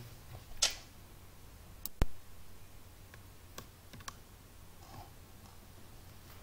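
A computer mouse being handled and clicked, giving several scattered sharp clicks over quiet room noise. The loudest click comes about two seconds in.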